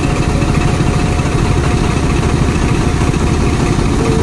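Tractor's diesel engine running steadily at a low, even speed, a fast chugging pulse.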